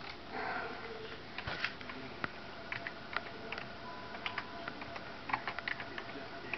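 Irregular light clicks of typing on a computer keyboard, single taps and short quick runs of keystrokes.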